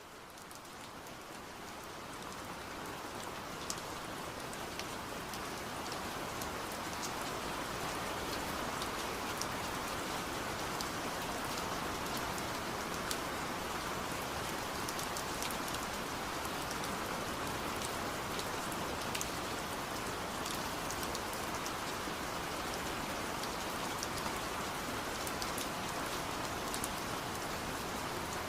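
Steady rainfall, a dense even hiss with scattered sharper drop ticks, fading in over the first several seconds and then holding level.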